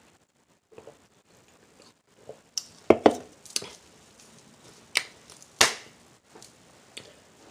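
A few scattered sharp clicks and knocks with quiet gaps between them. A close pair about three seconds in and a single one at about five and a half seconds are the loudest.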